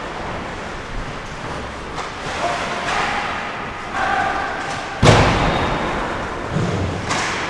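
A loud bang against the rink boards about five seconds in, ringing and dying away slowly, then a smaller knock about two seconds later, over general ice-rink noise.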